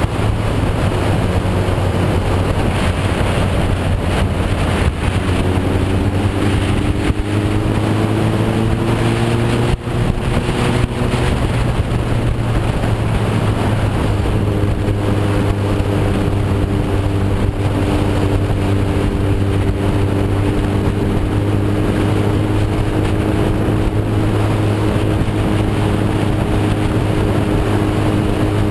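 Motorcycle engine running at road speed, with a steady rush of wind over the microphone; the engine pitch climbs a little about a third of the way through, then holds steady.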